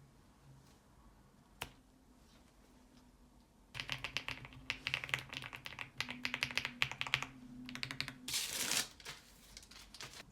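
Typing on a Rainy 75 mechanical keyboard with linear switches: one lone keystroke, then a quick run of clacking keystrokes for a few seconds. Near the end comes a brief dense rattle of keys.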